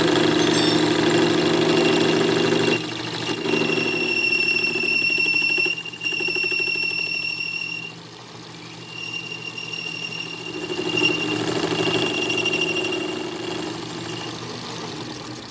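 Metal lathe running with a steady hum while the cutting tool works iron bar, a high-pitched whine from the cut coming and going.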